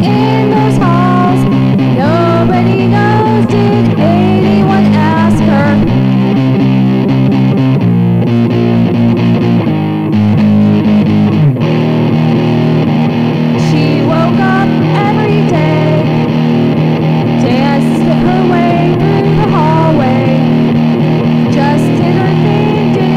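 Electric guitar playing a rock song over a steady low bass part, with bent and sliding notes; the low notes change every few seconds.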